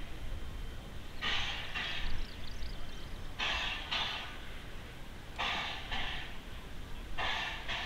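Steam locomotive W934 moving slowly, its exhaust chuffing in pairs about every two seconds.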